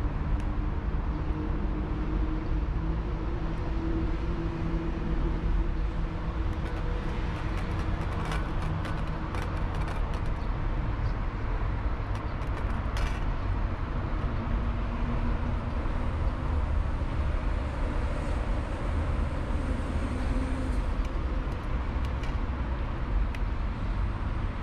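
Steady low rumble of city traffic, with a cat's chewing and licking clicks from wet food in a metal dish, clustered about a third of the way in and one sharper click a little after halfway.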